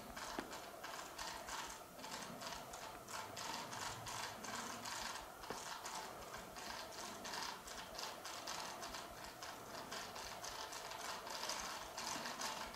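Faint, rapid, irregular clicking and ticking, several clicks a second, over a low hiss.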